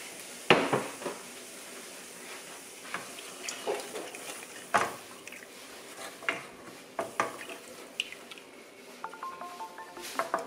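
Wooden spoon stirring milk into sausage gravy in a nonstick skillet, knocking and scraping against the pan at irregular intervals. The loudest knock comes about half a second in. Music starts near the end.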